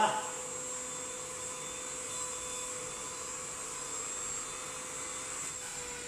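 UV Care portable handheld vacuum cleaner running on its 8000 Pa suction setting as it is worked over a mattress: a steady motor whine with a high hiss.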